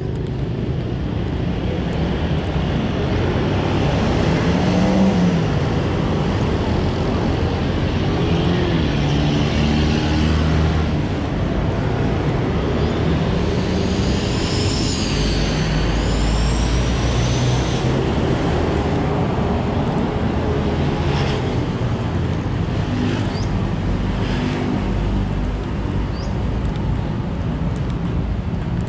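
Street traffic: motor vehicle engines running and passing, over steady road noise, with engine pitch rising and falling. A brief high wavering tone sounds about halfway through.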